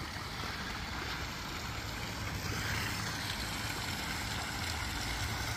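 Steady wind: an even rushing hiss, with no separate knocks or calls standing out.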